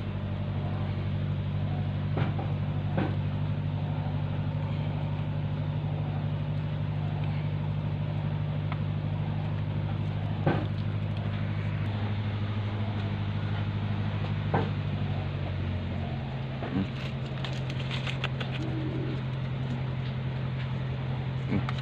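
A motor running steadily with a low hum that changes note about three-quarters of the way through, with a few sharp clicks and taps over it, more of them near the end.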